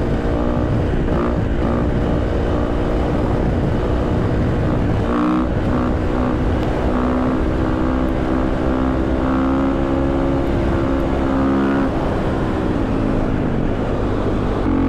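Supermoto motorcycle engine running under way with wind rumble on the microphone. The engine note holds steady, shifts in pitch about five seconds in, falls around twelve seconds and picks up again near the end.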